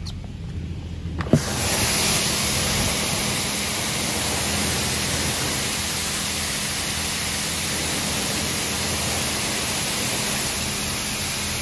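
High-pressure water spray from the Washworld Razor touchless car wash's overhead spray arm hitting the car as a loud, steady hiss. It starts with a click about a second in, with a low hum underneath.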